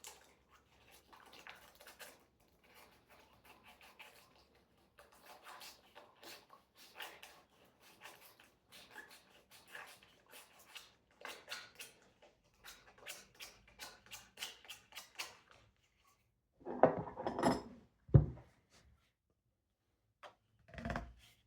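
Faint rubbing strokes and small clicks as a 3D-printed plastic shakuhachi joint is hand-sanded and handled, then a louder clatter of the plastic parts being handled and pushed together about 17 seconds in.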